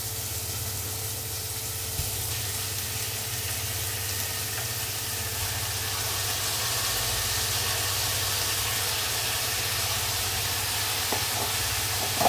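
Chicken pieces frying in hot oil in a stainless steel pot, a steady sizzle that grows a little stronger after about six seconds as more chicken goes in. A few light knocks of the ladle on the pot, about two seconds in and near the end, and a steady low hum underneath.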